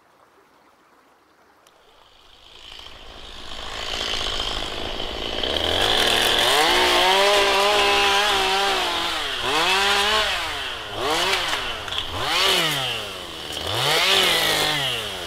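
Gas chainsaw coming in about two seconds in and growing louder, then running at high revs and revving up and down several times as it cuts into a fallen log.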